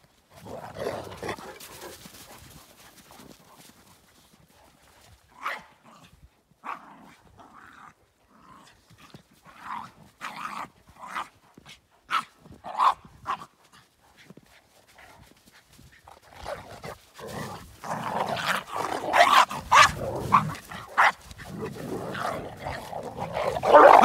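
Dogs growling and barking at each other in a dominance scuffle between two big dogs: scattered short barks and yelps a few seconds in, then a louder, denser bout of growling and barking in the last third.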